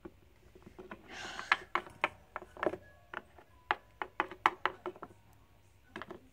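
Small plastic toy figurines being hopped and set down on a hard table, making a series of irregular light taps and clicks, with a short rustle about a second in.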